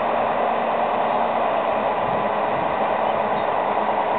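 Tatra 6x6 dump truck's diesel engine running steadily as the loaded truck drives through mud, heard as a constant rushing hiss with a faint low hum.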